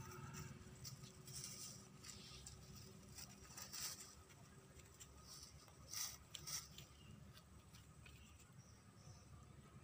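Near silence with a low room hum, broken by a few faint, brief rustles and scratches: one about four seconds in and two close together around six seconds.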